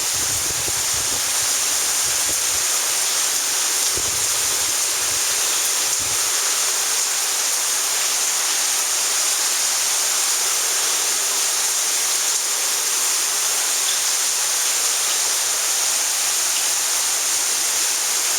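Heavy rain pouring down steadily, with little or no hail mixed in. A few low, dull bumps come in the first few seconds.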